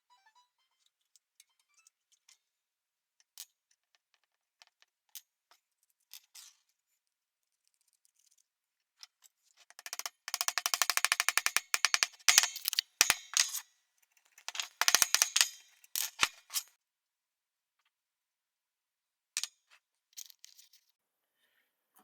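Scattered sharp clicks, then two runs of rapid rattling clicks, each lasting about two seconds, from small hard objects being handled or shaken.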